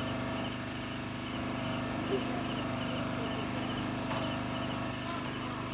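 Night-time chorus of insects in tropical forest: crickets chirping in a steady pulsing rhythm of about three to four beats a second over a constant low hum.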